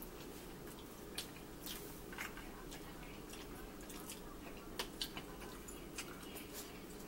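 Scattered small clicks and soft smacks from opening and handling a plastic drink bottle and from eating, over a steady low room hum.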